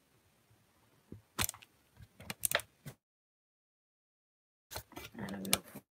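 Handling noise from fingers touching a smartphone held close to its microphone: a string of sharp clicks and knocks for about two seconds, then a short dense cluster of clicks near the end.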